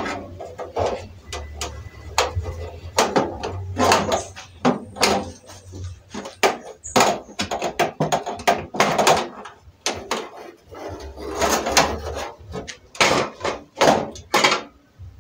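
Irregular metal clanks, knocks and rattles as a two-burner gas stove's sheet-metal body and brass gas valve-and-pipe assembly are handled and worked loose.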